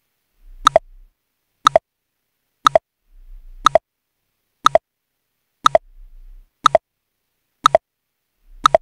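Countdown timer sound effect: a sharp tick about once a second, nine in all, each a quick double click.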